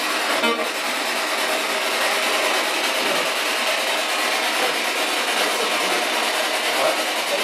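Spirit box, a radio that sweeps rapidly through stations, putting out a steady hiss of static, with a short stutter of clicks about half a second in.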